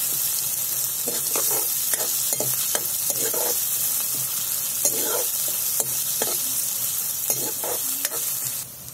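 Chopped onions sizzling as they fry in hot mustard oil in a metal kadhai, stirred with a steel ladle that scrapes and knocks against the pan again and again. The sizzle drops off suddenly near the end.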